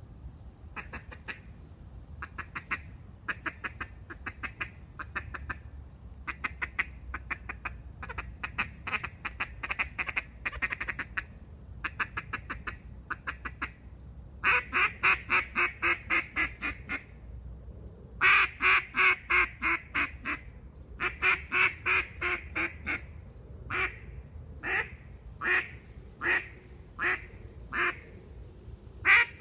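A Black River Black Monster keyhole duck call being blown, giving duck quacks. The quacks come in quick runs, softer at first and louder from about halfway, then separate single quacks spaced under a second apart near the end.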